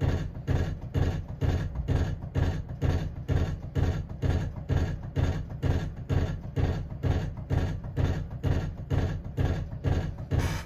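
Emerson friction-drive ceiling fan running at medium speed, noisy, with a steady rhythmic thumping beat a few times a second over a low hum.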